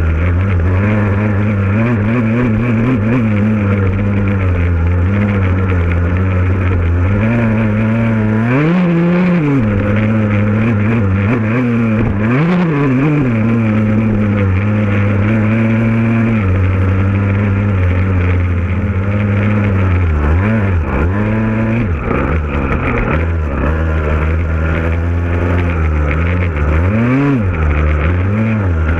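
Motocross bike engine running hard under load, its pitch climbing and dropping as the throttle is worked. It rises sharply several times, near 9 and 12 seconds in and again near the end.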